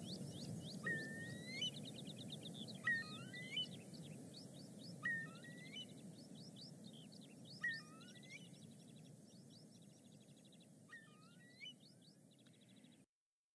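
A songbird singing repeated phrases of quick rising whistles, short trills and lower falling notes over low background rumble. The sound fades gradually and cuts off a little before the end.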